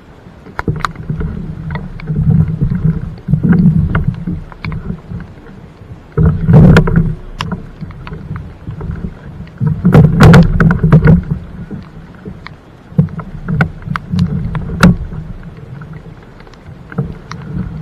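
Plastic fishing kayak hull being hauled onto a trailer's PVC-pipe rollers: many knocks and scrapes of the hull against the rollers and frame, with two bouts of heavy thumping about six and a half seconds in and again around ten seconds in.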